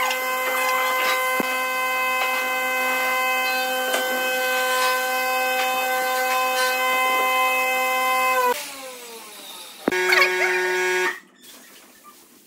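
Handheld electric router running unloaded with a steady, high whine, then switched off about 8.5 s in, its pitch falling as the motor spins down. Near the end a short burst of another whine starts suddenly and cuts off abruptly.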